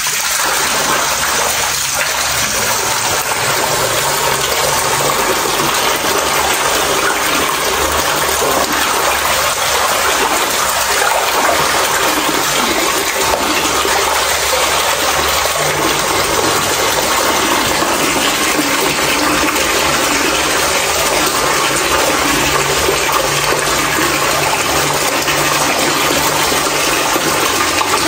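Steady rushing water, an even, unbroken noise with a faint low hum beneath it.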